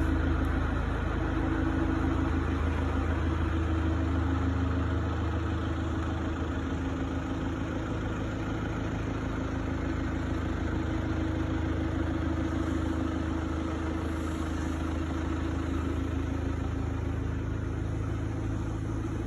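Steady low machine hum, unchanging throughout, over a faint even hiss.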